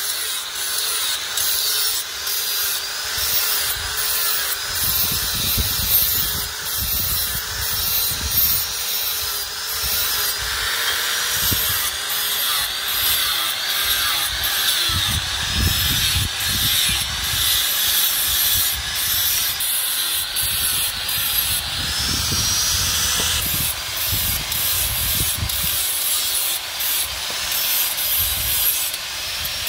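Handheld angle grinder running continuously with its disc ground against a steel cleaver blade to put on the edge. The motor tone and the high grinding noise waver as the disc is pressed into and eased off the metal.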